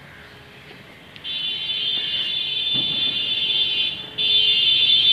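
A steady, shrill whistling tone starts about a second in, breaks off briefly near four seconds, then comes back louder.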